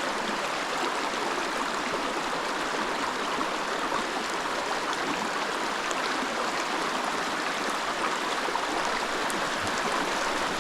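Steady rushing of a mountain creek's flowing water, even and unbroken.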